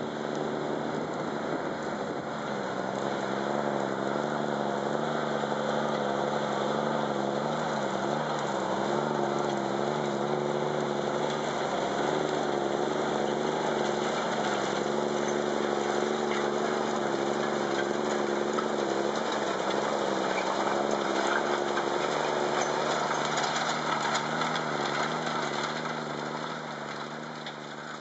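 Claas Xerion 3800 tractor engine running steadily under load while pulling a disc cultivator through stubble, over a broad rushing hiss. The sound fades down near the end.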